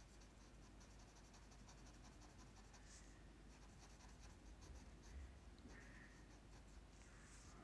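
Faint scratching of a black felt-tip marker on paper, a quick run of short strokes colouring an area in solid black.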